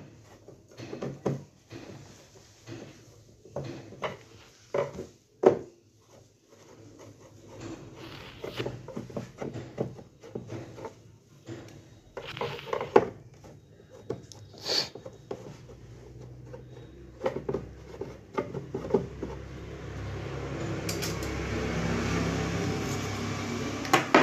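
Hard plastic back cover of an Aiwa LED TV being worked at with a screwdriver and handled: irregular clicks, knocks and scrapes. Over the last few seconds a steadier rubbing noise builds up.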